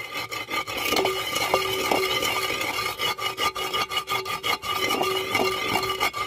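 Wooden pestle grinding roasted cumin seeds and black pepper against an unglazed clay bowl: a continuous gritty rubbing and scraping as the seeds are crushed to powder.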